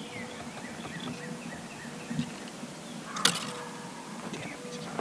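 Small birds chirping in the woods, a run of short falling chirps, with one sharp click about three seconds in.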